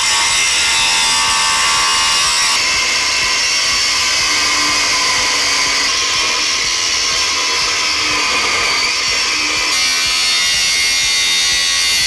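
Angle grinder with a thin cutting disc cutting down the head of a 10 mm steel bolt held in a vise: a loud, steady high-pitched whine and grinding hiss of the disc on steel. Its tone changes abruptly about two and a half seconds in and again near ten seconds.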